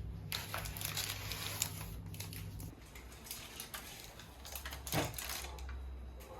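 Irregular clicks and knocks of kitchen things being handled, the loudest knock about five seconds in, over a low steady hum that stops about three seconds in.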